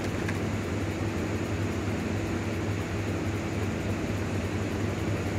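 Steady low hum with hiss, unchanging throughout: background noise with no event in it.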